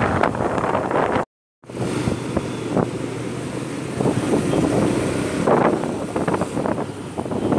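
Wind buffeting the microphone over road and traffic noise while riding a motorcycle, cut off by a sudden short silence about a second in. Street traffic noise with a low, steady engine hum follows.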